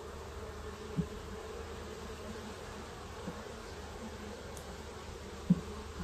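Honey bees from an opened hive buzzing in a steady hum, with two short low thumps, one about a second in and a louder one near the end.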